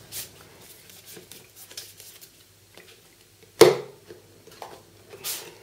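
Cardboard phone box being handled, with soft rustles and a brief scrape as the inner box slides out of its outer sleeve. One sharp knock comes about three and a half seconds in.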